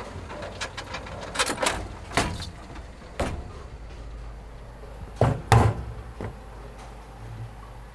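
A series of sharp knocks and bangs over a steady low hum, the loudest two close together about five seconds in.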